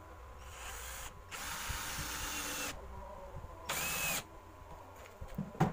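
Cordless drill running in three short bursts, driving screws into plywood, with one sharp knock near the end.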